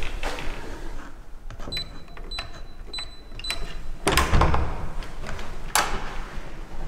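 Electronic keypad door lock beeping as a code is keyed in, about five short high beeps. About four seconds in, a louder clatter and thud of the door's handle and lock mechanism, and another sharp clack a little later.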